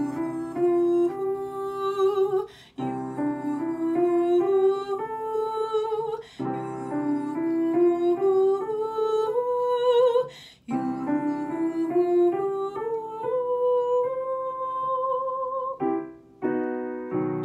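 Female voice singing an ascending vocal exercise on light 'hoo' syllables over sustained piano chords. There are four phrases, each climbing stepwise to a higher top note: a fifth, a sixth, a seventh, then an octave. Near the end a new piano chord sounds.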